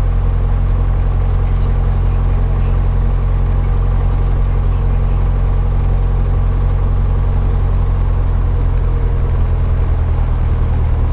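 Cessna 172's piston engine and propeller running steadily at low power while taxiing, its note shifting slightly about ten seconds in.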